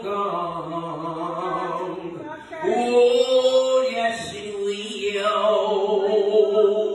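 A young man singing solo with no accompaniment, holding long drawn-out notes with slow slides between them.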